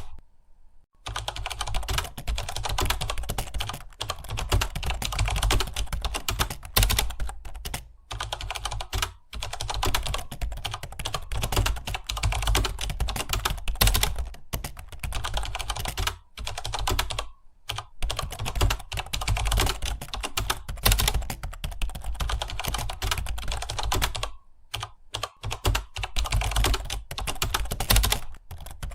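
Fast, continuous typing on a computer keyboard: a dense run of key clicks with a few brief pauses.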